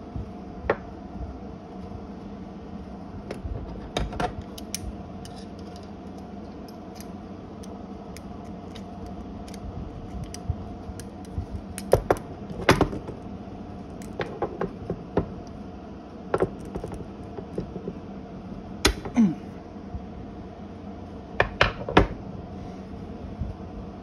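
Scattered sharp clicks and clacks of hand tools being handled on a wooden table: Irwin Vise-Grip locking pliers clamping the plastic cap of a small stubby screwdriver, and metal and plastic knocking against the wood. A steady low hum runs underneath.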